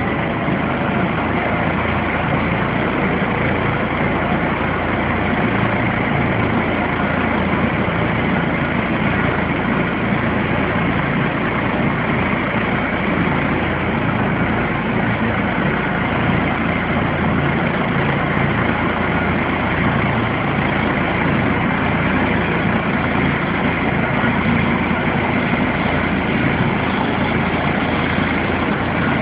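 Helicopter's turbine engines and rotor running steadily on the ground: a loud, even noise that holds the same level throughout.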